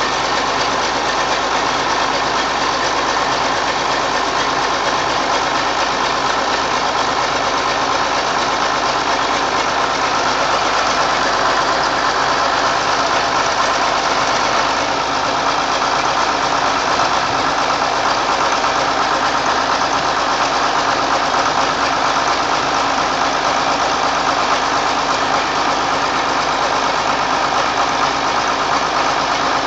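John Deere 4240's six-cylinder diesel engine idling steadily just after a true cold start at about 33 °F, with no block heater, starting fluid or glow plugs.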